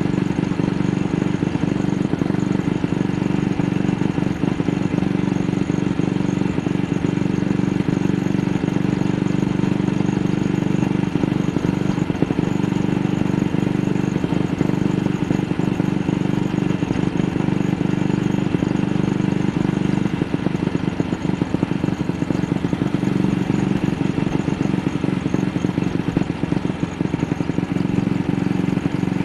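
AJS Model 8 motorcycle engine running under way, its steady note broken by frequent brief dropouts. The engine is misfiring; the rider has no clear cause and suspects something in the carburettor.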